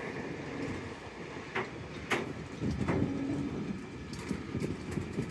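Network Rail JNA bogie box wagons rolling past at close range: a steady rumble of wheels on rail, with three sharp metallic clanks between about one and a half and three seconds in.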